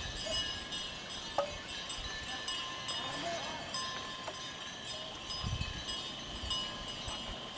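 Faint voices of people on the road over steady outdoor background noise, with a brief low rumble about five and a half seconds in.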